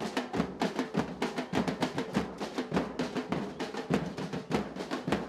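A group of street drummers beating bombos (large bass drums) and snare drums, in a fast, steady beat of many strikes.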